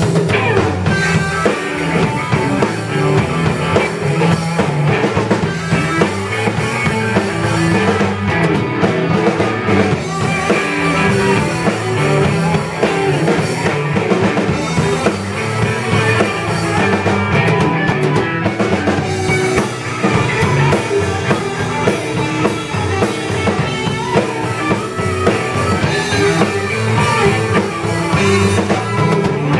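Live blues band playing: two electric guitars over a drum kit, loud and continuous.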